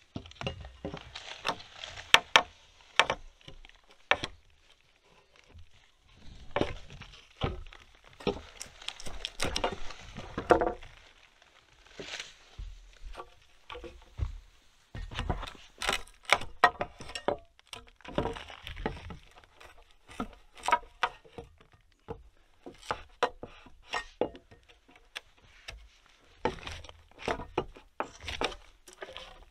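Steel crowbar (nail puller) prying wooden roof poles loose from a log frame: irregular knocks and cracks of wood and metal, some sharp and loud, throughout.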